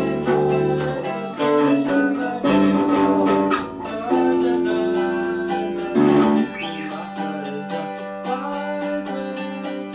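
Mandolin picked fast with an electric bass guitar playing along, the low bass notes coming and going.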